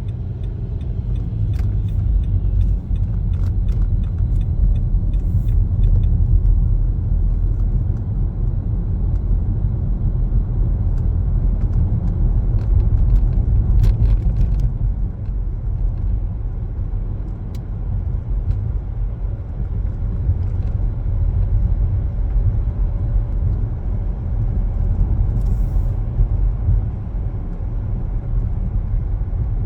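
Car driving, a steady low rumble of road and engine noise, with a few faint ticks in the first few seconds.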